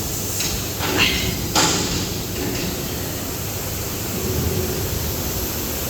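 Band saw cutting machine for maxi paper towel rolls running steadily, with a few sharp knocks in the first two seconds.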